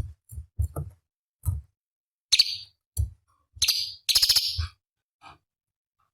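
Cucak cungkok leafbird singing a run of short, harsh, scratchy bursts and quick chattering notes, about ten in six seconds with short gaps between them. These are the sharp call bursts that bird keepers play as a training recording.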